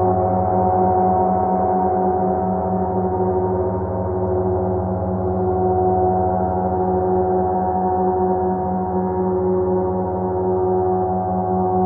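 50-inch Oetken Sound Creation gong rubbed with a pair of Flumies friction mallets, giving a sustained drone of many steady overtones. The drone swells and eases gently, with no separate strikes.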